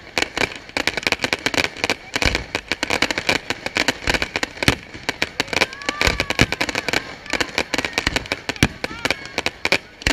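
Fireworks display finale: a dense, rapid run of bangs and crackling from many shells bursting at once.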